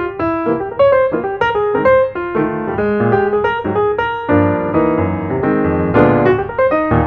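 Background piano music: a light melody of quick notes, turning to fuller held chords about four seconds in.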